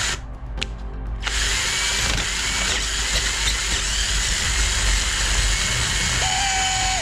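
Electric drill boring out the hollow steel body of an old spark plug clamped in a vise, clearing its inside. After a couple of short clicks, the drill starts about a second in and runs steadily, with a steady whine joining near the end.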